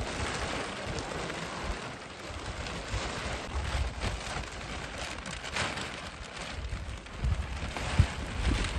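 Large plastic sheet rustling and crackling as it is dragged and spread over a frame of bent sticks, with low gusts of wind buffeting the microphone and a brief thump near the end.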